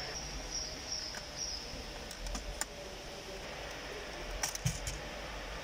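Plastic clicks and snaps from a car's dashboard radio trim bezel and air vent being handled and unclipped: a few clicks about two seconds in and a short cluster near the end, over a steady hiss.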